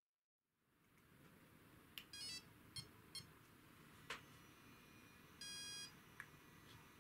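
Electronic beeps from a radio-controlled car's electronics on power-up. A short beep comes about two seconds in, then two quick blips, a sharp click, and a longer beep a little past five seconds, over faint room hiss.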